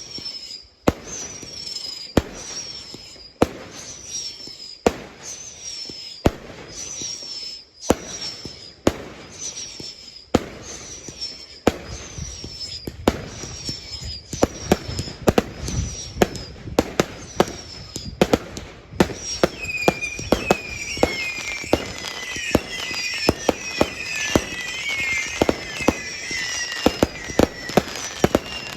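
Fireworks going off: sharp bangs about one every second and a half, each followed by a short falling whistle. About halfway through the bangs come much faster and denser, and in the last third a second set of lower whistles joins in.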